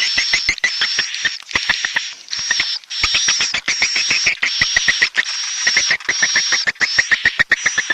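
Swiftlet roosting call ('suara inap') recording: short chirping phrases repeating about every two-thirds of a second, each a rapid rattle of clicks under a high thin note. This is the night call played in swiftlet houses to lure swiftlets in to roost.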